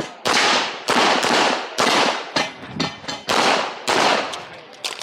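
Handgun shots fired rapidly during an IPSC course of fire: about eight shots in uneven groups, some close pairs, each with a short echoing tail.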